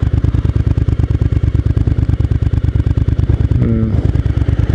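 Suzuki SV1000S's 996 cc 90-degree V-twin idling in gear through open-can aftermarket exhausts, a steady, even beat.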